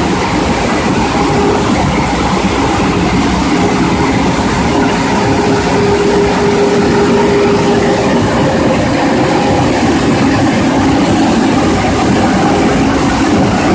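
Touchless car wash's overhead air dryers blowing, really loud: a steady rush of air with a constant hum in it.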